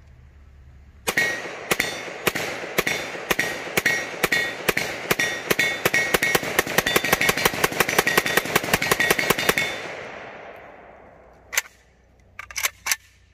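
Zastava ZPAPM70 AK-pattern rifle in 7.62x39 firing a long string of rapid semi-automatic shots, about forty in all, coming faster toward the end. The firing stops about ten seconds in with an echo trailing off, and a few sharp knocks follow near the end.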